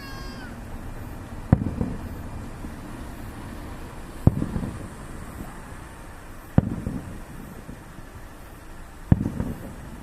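Aerial firework shells bursting four times, one every two to three seconds, each a sharp bang followed by a short low rumble.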